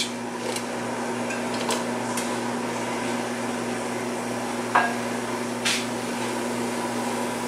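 King trumpet mushroom slices frying in sesame oil in a non-stick pan over a gas burner: a steady hiss over a low hum, with a couple of light clicks about five and six seconds in as slices are set into the pan.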